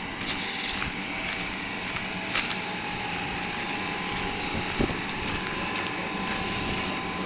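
Footsteps crunching on gravel while walking, over a steady hiss with a faint hum.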